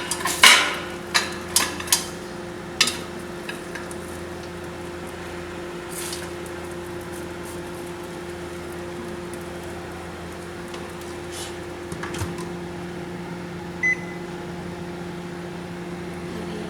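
Microwave oven running with a steady low hum, after a few sharp clicks and knocks in the first three seconds. One short beep about 14 seconds in.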